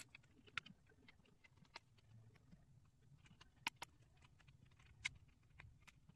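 Sparse small clicks and taps of plastic 3D puzzle-ball pieces being handled, picked off a wooden table and pressed into place on the curved puzzle, about half a dozen, two of them close together in the middle.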